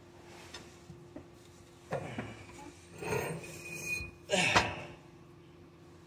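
Metal clanking and scraping as a truck's front differential housing is wrestled loose and shifted against the frame and steering linkage, in three separate bursts about two, three and four and a half seconds in.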